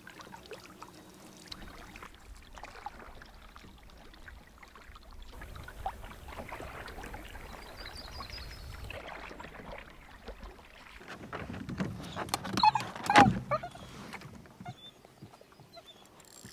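Lake water lapping and sloshing around a canoe, with a cluster of sharp knocks and clatter about three-quarters of the way through.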